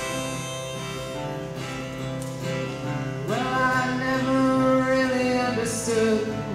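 Acoustic guitar and harmonica playing an instrumental break, with a louder held melody line coming in about three seconds in.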